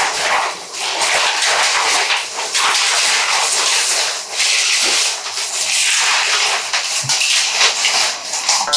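Paper wrapping rustling and crinkling as it is pulled off a framed poster, an uneven scratchy noise that swells and dips.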